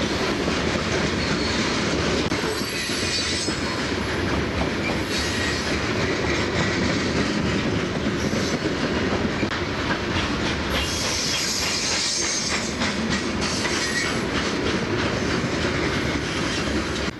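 Coal hopper cars of a freight train rolling past, their wheels clicking over the rail joints, with a brief high wheel squeal about eleven seconds in.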